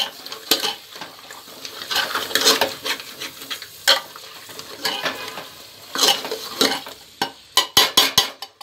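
Metal ladle stirring and scraping thick mutton masala round a metal pot in irregular strokes, the masala sizzling in the oil. Near the end comes a quick run of sharp metal knocks against the pot.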